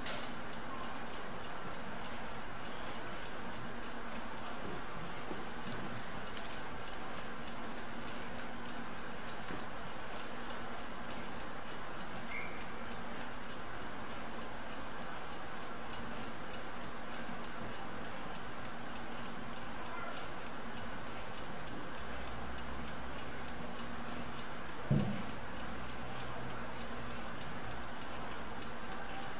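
Mechanical laboratory stopclock ticking quickly and evenly as it runs, with a single low thump near the end.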